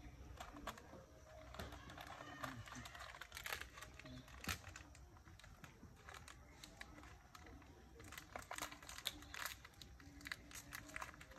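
Faint crackling and rustling of dry leaf litter as a baby macaque picks through it: a scatter of small crisp clicks that grow busier near the end.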